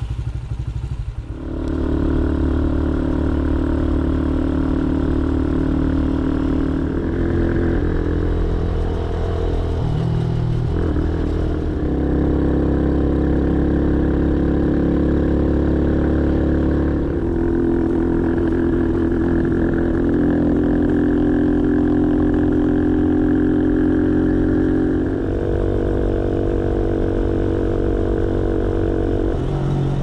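Motorcycle engine running, settling into a steady note about a second and a half in, its pitch stepping up and down several times as the revs change.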